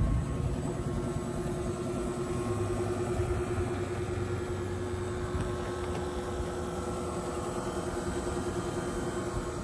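Electric motor assembly of an all-electric Ford F-150 conversion running under the open hood. It gives a steady hum with a constant mid-pitched whine over a low rumble.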